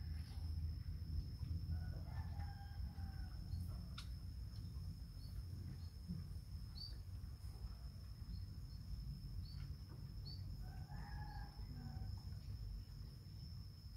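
A rooster crowing twice, about two seconds in and again about eleven seconds in, over a steady high-pitched whine and a low rumble.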